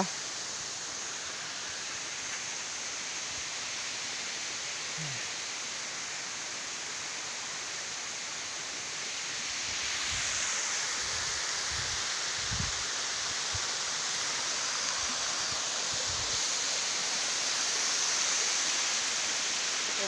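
Steady rush of a waterfall pouring down a rock face, swelling a little about halfway through. A few brief low thumps come in the middle.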